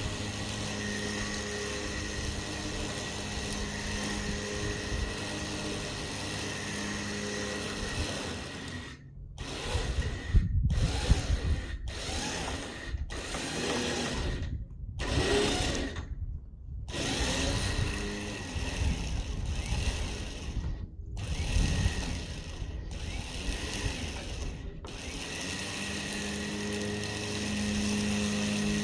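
A machine running steadily with a constant hum. In the middle stretch the sound is chopped by several abrupt dead-silent gaps before it settles back to the steady hum near the end.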